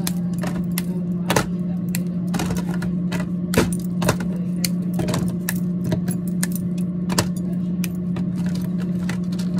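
Hard pieces of homemade nut chocolate bark clicking and clacking against each other and against a plastic tray as they are handled and sorted, many irregular sharp clicks. A steady low hum runs underneath.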